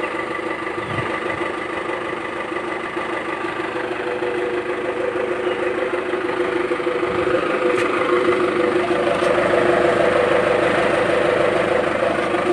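Engine idling through a Ragasa 'serigala' (wolf-howl) aftermarket exhaust, a steady droning note that grows a little louder about six seconds in.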